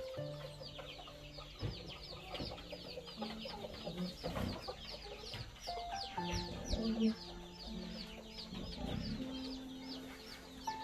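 Birds chirping steadily, a rapid string of short, high, falling peeps several times a second, over soft background music with long held notes.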